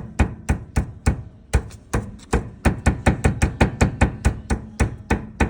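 Honda Stepwgn RP1 steering rack knocking: the rack rod rattles in its worn bushing with the wheel turned to the right. It is a rapid, uneven series of sharp knocks, about five a second, and is the sign of a worn steering rack bushing.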